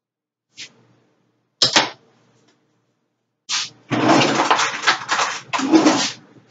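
A utensil knocking and clattering against a glass mixing bowl a few times, then about two seconds of rapid, continuous scraping and clattering in the bowl of stiff whipped cream.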